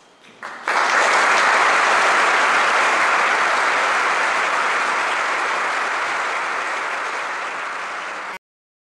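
Audience applauding: a few first claps, then full, dense applause from under a second in that slowly eases off and is cut off abruptly near the end.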